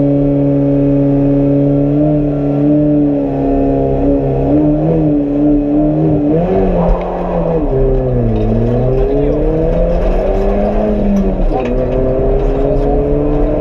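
Peugeot 206 rally car's engine heard from inside the cabin, held at steady revs while the car waits at the start, then pulling away about seven seconds in and accelerating hard, the revs dropping at each gear change and climbing again.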